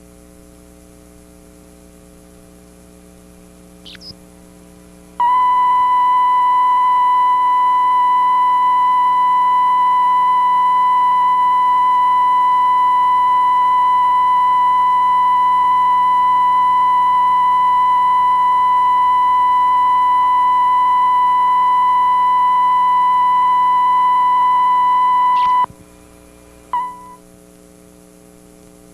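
A single steady electronic alert tone at one unwavering pitch sounds loudly for about twenty seconds over a low mains hum, then cuts off sharply. A short blip of the same tone follows about a second later.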